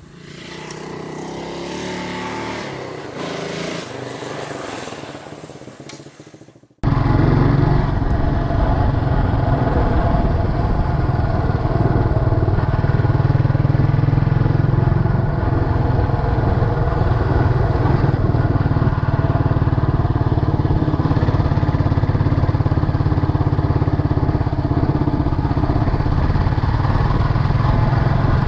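Scrambler motorcycle engine running at a steady pace on the ride. It comes in abruptly about seven seconds in, after a quieter, shifting stretch.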